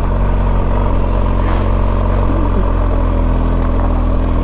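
BMW GS motorcycle engine pulling at a steady pitch in first gear up a steep mountain-pass gradient.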